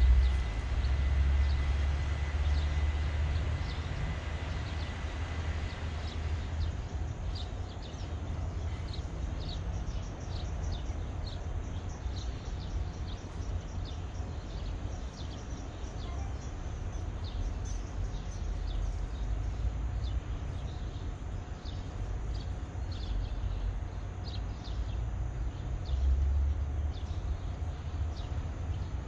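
Low, steady rumble of traffic on the elevated highway overhead, heavier for the first few seconds. From about seven seconds in, small birds chirp in short, scattered calls.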